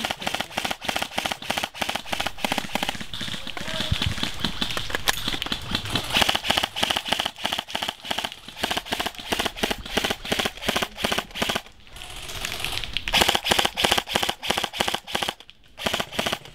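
Airsoft rifles firing a rapid string of shots, about five sharp cracks a second, kept up as suppressing fire with brief lulls near twelve and fifteen seconds in.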